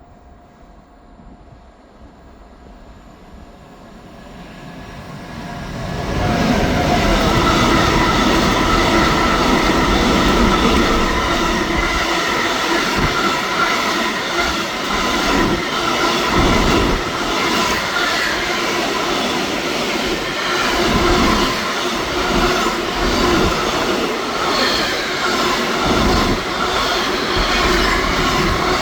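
Container freight train hauled by locomotive 388 066, approaching and then running past: a rumble that swells over the first few seconds. It then holds as a loud, steady rolling and rattling of wagons on the rails, with a thin wheel squeal over it.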